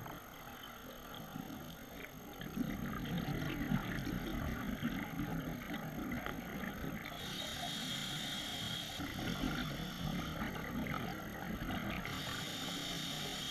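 Scuba diver breathing through a regulator underwater: long bubbling rumbles of exhaled air, each followed by the hiss of an inhale through the regulator, about seven seconds in and again near the end.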